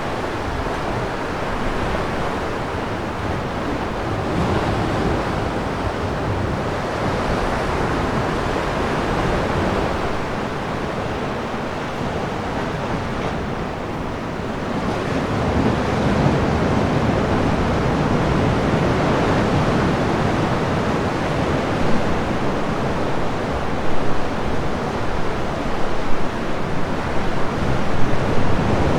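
Sea waves surging into a sea cave: a continuous rushing wash that swells and eases every few seconds, growing louder about halfway through, with sharper splashes of breaking water in the last several seconds.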